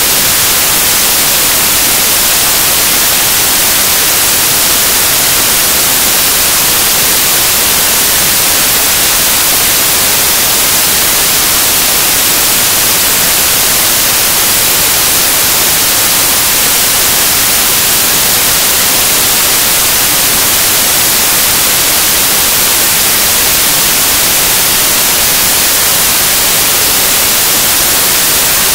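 Loud, steady static hiss, like white noise, with no change in level or pitch throughout.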